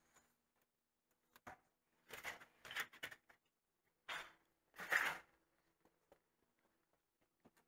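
A few short scraping and rustling handling noises, the loudest about five seconds in, with quiet gaps between them.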